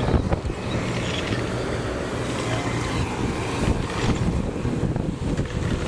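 A boat engine drones steadily, with wind buffeting the microphone.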